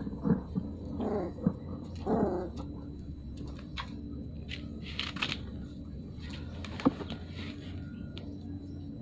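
Two puppies play-fighting, with short growls and whimpers in the first few seconds and scuffling after. There is a sharp click about seven seconds in.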